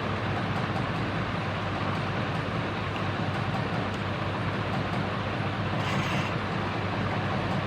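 48-inch CMC industrial ceiling fan running: a steady rush of moving air over a low motor hum, with a brief faint hiss just after six seconds.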